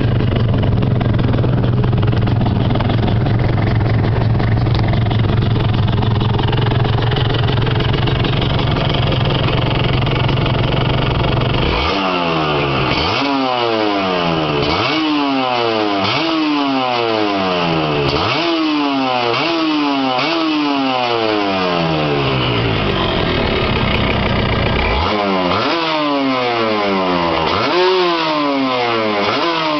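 Kawasaki Victor-S 150 motorcycle engine running steadily, then revved in a string of quick throttle blips about every second and a half, each rising sharply and falling back. After a short pause it is blipped a few more times near the end.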